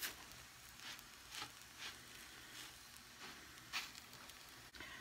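A silicone spatula scraping and sliding pita dough around a hot, oiled electric griddle plate: about five short scrapes, the loudest near the end, over a faint sizzle.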